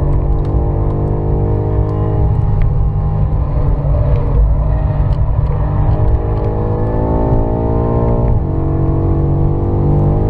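BMW M5 F90's twin-turbo V8 heard from inside the cabin, pulling hard with its pitch climbing, then dropping suddenly at an upshift from fourth to fifth gear about three quarters of the way through, over a steady low road and tyre rumble.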